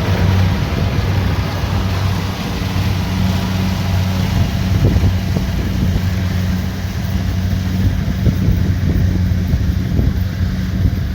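Kubota DC70 Pro combine harvester's diesel engine running steadily under load, a constant low hum with a noisy mechanical clatter over it.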